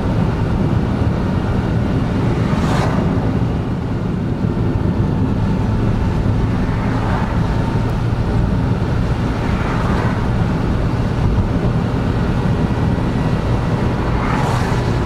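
Cabin noise of a Honda N-BOX Custom's 660 cc turbo engine and its tyres on a wet road: a steady low hum under a hiss of tyre noise, with a few brief swishes.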